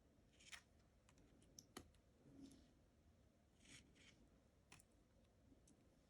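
Faint handling of tarot cards: a few soft swishes of cards sliding off the deck, with light clicks as they tap together.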